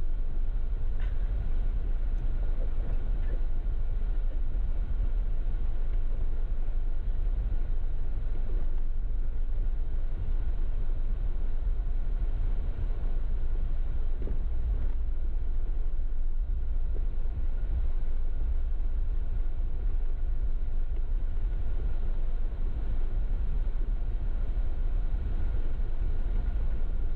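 Jeep driving along an off-road trail: a steady low rumble of engine and tyres, with no change in pace.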